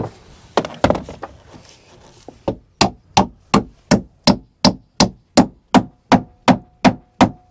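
Hammer driving copper nails into clamped wooden boat timbers: a few loose knocks, then from about two and a half seconds in a steady run of about three blows a second. A faint ringing tone sounds under the last few blows.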